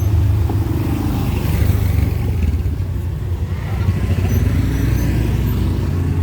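Street traffic: a steady low rumble of cars and motorcycles passing.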